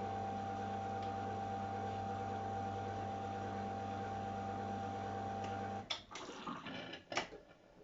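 AEG Öko-Lavamat 693 washing machine humming steadily. The hum cuts off suddenly about six seconds in, followed by a few clicks and knocks, one sharper click near the end.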